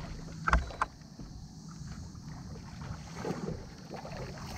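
Two sharp knocks about half a second in as a bass is hooked from a bass boat. Then a steady low hum with wind and water while the fish is fought on the rod.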